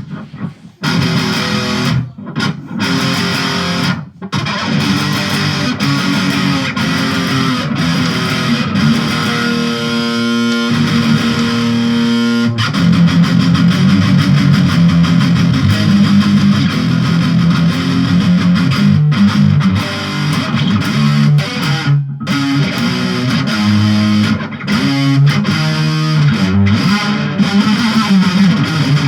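Electric guitar in drop D tuning through a high-gain distorted sound, shredded freely: fast runs and chugging on the low strings. It breaks off briefly a few times in the first few seconds, holds one note around ten seconds in, then plays louder.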